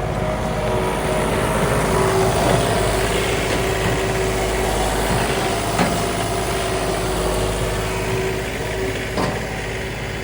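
John Deere 3039R compact tractor's diesel engine running at working speed, driving a Woodland Mills WG24 PTO stump grinder, a steady mechanical sound with a couple of sharp knocks from the cutter wheel. It eases off slightly near the end as the grinding finishes.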